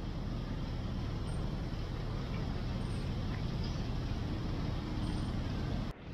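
Steady low outdoor rumble of city ambience, like distant road traffic. It breaks off briefly near the end.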